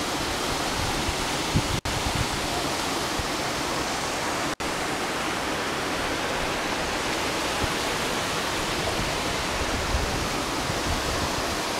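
Waterfall's steady rush of falling water, an even hiss with no change in level, broken twice by a split-second dropout in the sound.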